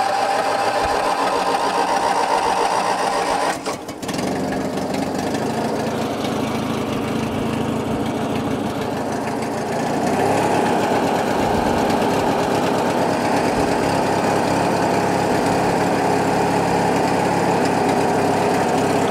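Briggs & Stratton opposed-twin engine of a Craftsman LT1000 lawn tractor running on choke just after starting. It stumbles briefly about four seconds in, then runs on, a little louder from about ten seconds in. It will only stay running with the choke on, which the owner puts down to it maybe not getting enough gas.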